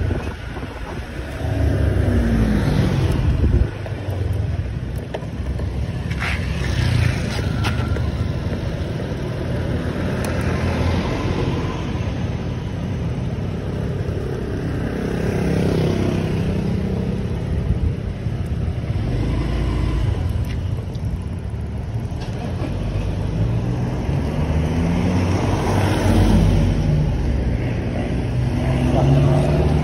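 Honda scooter's engine running under way, its pitch rising several times as the rider accelerates, with wind and road noise throughout.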